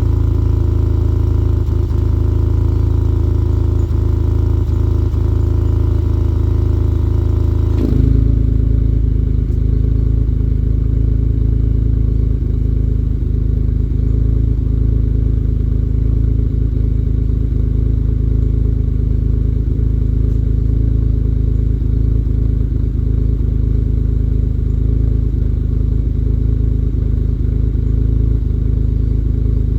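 Pontiac GTO V8 idling steadily through Varex mufflers. About eight seconds in, the exhaust note changes abruptly from a fuller mid-range sound to a deeper, lower rumble, as the motorized muffler valve switches position.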